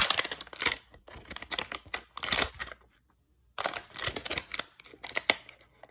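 Plastic toy snow globes being handled: a quick run of small plastic clicks and rattles, in two stretches with a short pause about three seconds in.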